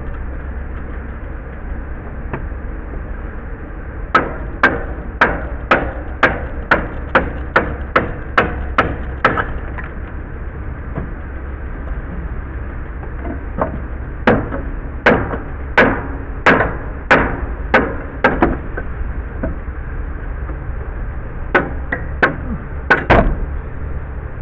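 Hammer blows on wood, in three runs of quick, evenly spaced strikes, about two a second, while a deck board is being knocked loose.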